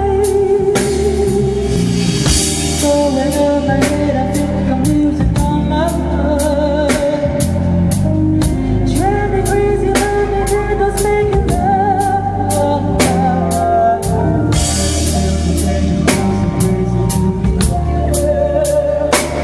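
A solo singer sings a melody over band music with a drum kit keeping a steady beat of about two hits a second.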